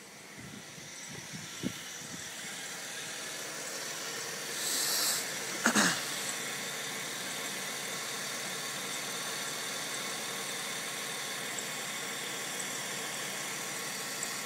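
2001 Dodge Intrepid's 2.7-litre V6 idling steadily, growing louder over the first few seconds as the engine bay is approached. A brief hiss and a short sharp knock come about five to six seconds in.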